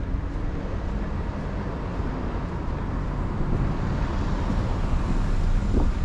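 City street ambience: a steady rumble of car traffic that grows a little louder toward the end.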